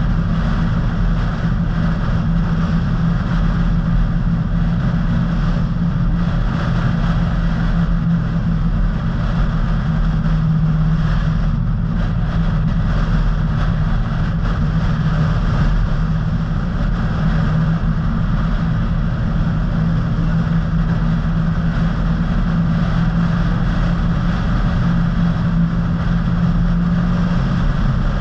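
A car driving at steady speed on a paved road: a constant drone of engine and tyre noise with a steady low hum.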